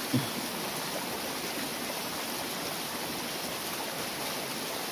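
Steady rush of running stream water, with a brief low thump just after the start.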